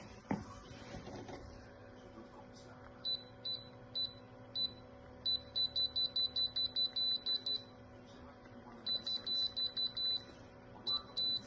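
Short high electronic beeps, first a few spaced out, then quick runs of them, like a control panel beeping under repeated button presses. A faint steady hum runs underneath.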